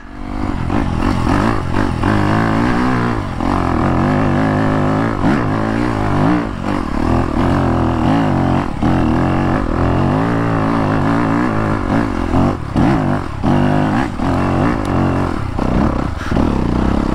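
The 2021 Yamaha YZ250FX's 250 cc four-stroke single-cylinder engine revving up and down while the dirt bike is ridden, its pitch rising and falling with the throttle. Occasional knocks and rattles from the bike come through.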